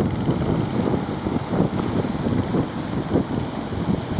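Wind buffeting the microphone in uneven gusts over the wash of the sea and surf.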